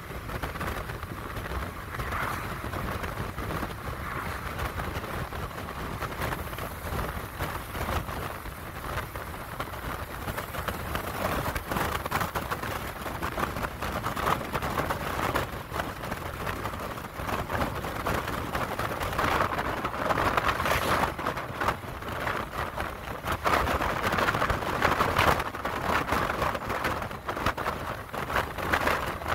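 Steady rushing wind and road noise from a car travelling at highway speed, with gusts buffeting the microphone.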